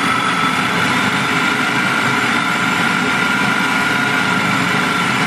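Food processor running steadily at full speed with a constant motor whine, chopping oats, soaked dates, cashew butter and cocoa powder into a dough.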